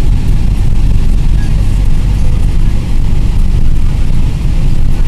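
Car driving along a road, heard from inside the cabin: a loud, steady low rumble of road and engine noise.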